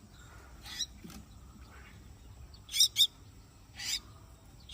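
Mynas at the nest giving short, harsh chirping calls, about five in all. The loudest are two quick calls close together about three seconds in.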